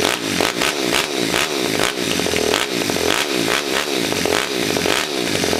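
Gnome monkey bike's high-compression 23 bhp engine revved in a rapid series of throttle blips, the pitch shooting up and dropping back about twice a second. It only has a 400 g flywheel, so it revs up very fast.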